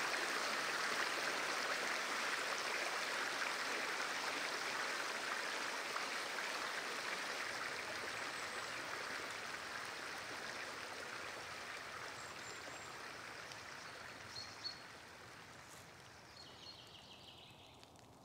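Small snowmelt stream running, a steady rush of water that fades gradually until it is faint by the end.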